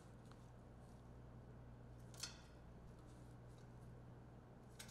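Near silence: faint room tone with a low steady hum, and one faint click about two seconds in.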